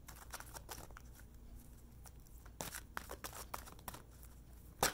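A deck of cards being handled and shuffled close to the microphone: scattered soft clicks and rustles, with one sharper snap near the end.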